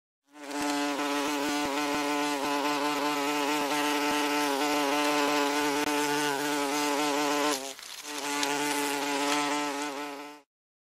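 Wasp buzzing: a steady, slightly wavering pitched drone of beating wings. It dips briefly about eight seconds in, picks up again, then stops shortly before the end.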